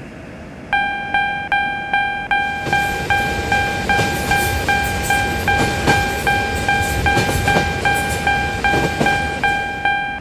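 Japanese railroad crossing bell ringing its steady 'kan-kan', about two and a half strikes a second, starting just under a second in. From about two and a half seconds in, the rushing noise of a passing train with rail clatter joins the bell.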